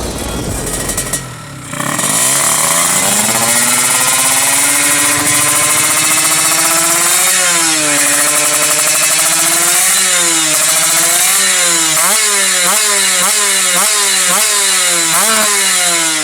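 Two-stroke engine of a Kawasaki Ninja 155 drag bike being revved: after a short lull it picks up and climbs, then is blipped up and down in quick, even stabs, about two a second toward the end.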